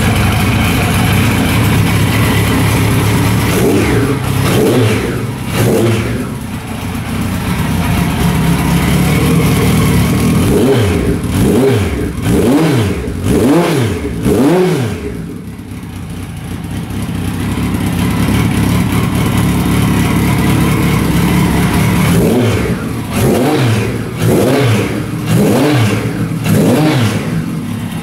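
Kawasaki Z1100R air-cooled inline-four idling through a Marshall endurance aftermarket muffler. It is blipped in short throttle revs, each rising and falling quickly: a couple about four seconds in, a run of about five in the middle, and another run near the end.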